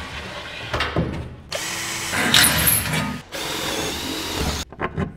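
Cordless drill running twice, each run about a second and a half, fixing a plywood board to a shelving rack, after a couple of knocks as the board is set in place.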